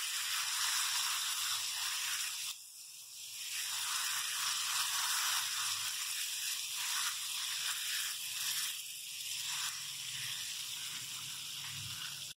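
Egg, milk and sugar mixture sizzling in hot ghee with semolina in a stainless steel pan as it is stirred slowly with a silicone spatula: the hiss of its liquid frying off. The hiss is steady, with a brief dip about two and a half seconds in.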